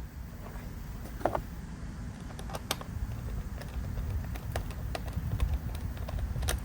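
Scattered light clicks and taps of plastic parts as the mower's air filter and its cover are fitted back on, over a low steady rumble.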